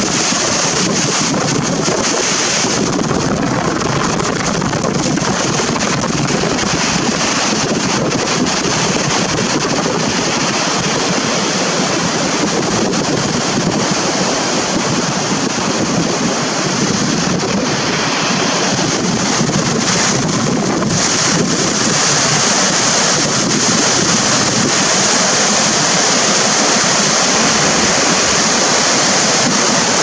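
Waterfall rushing steadily, a continuous sound of falling white water that gets slightly louder about two-thirds of the way through.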